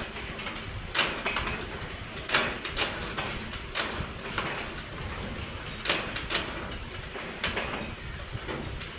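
Irregular sharp clicks and scrapes, roughly one or two a second, over a low background rumble: hand tools and metal parts being handled during work on a tractor engine.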